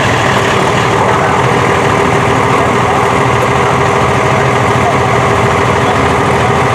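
Diesel Dodge Ram pickup's Cummins inline-six idling steadily as the truck creeps forward, with no revving.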